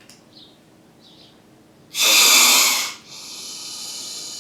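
Recorded snake hissing: a sharp, loud hiss about two seconds in, then a longer, steadier hiss.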